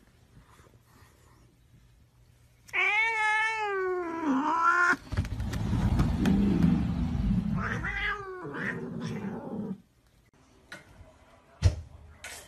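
A cat yowling: a long wavering cry about three seconds in, then a rougher noisy stretch with a second drawn-out cry, stopping about ten seconds in. A sharp click near the end.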